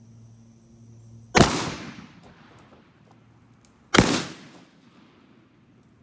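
Remington 11-87 12-gauge semi-automatic shotgun fired twice, about two and a half seconds apart, each shot loud and sharp with a trailing echo.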